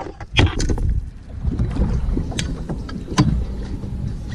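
Wind rumbling on the microphone and water slapping against a fishing kayak, broken by several sharp knocks and clatters as the rod and a landing net are handled aboard. The loudest knocks come about half a second in and again just past three seconds.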